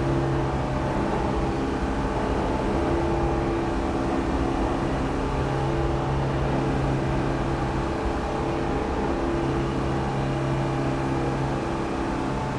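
New York subway ambience: a steady rumble of a subway train running, with a steady low motor hum and a couple of fainter higher tones over it.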